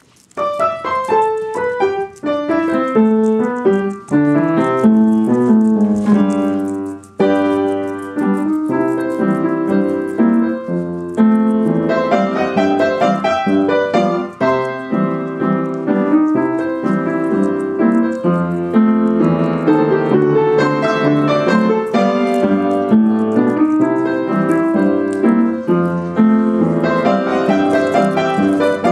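Piano music: a continuous run of notes over chords.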